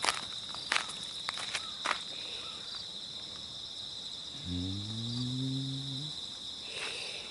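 Insects singing in a steady, high-pitched shrill, with a few sharp taps in the first two seconds. About four and a half seconds in, a low voice-like hum rises in pitch and then holds for about a second and a half.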